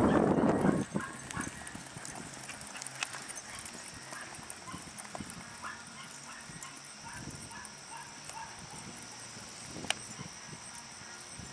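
Horse cantering on soft arena dirt, its hoofbeats faint thuds, after a loud rush of noise in the first second. Short calls repeat throughout, with one sharp click near ten seconds in.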